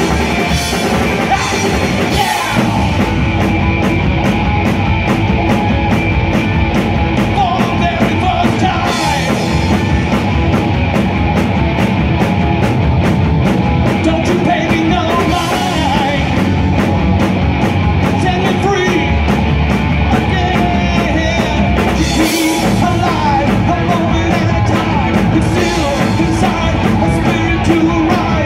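Live rock band playing loud: electric guitars, electric bass and a drum kit keeping a steady beat, with a man singing lead into the microphone.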